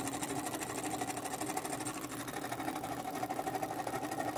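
Homemade single-acting oscillating (wobbler) engine running steadily on compressed air, with a fast, even mechanical ticking rhythm.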